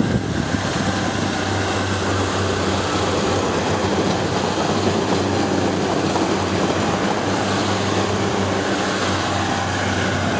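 Class 142 Pacer diesel multiple unit running past close by, its underfloor diesel engines giving a steady drone over the noise of the wheels on the rails.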